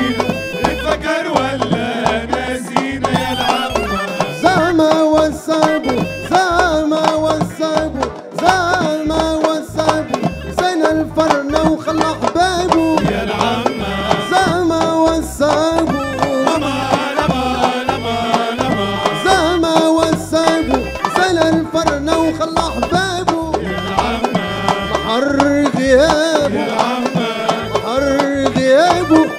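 Live Tunisian folk dance music: a male voice singing over a steady beat on frame drums and hand drums.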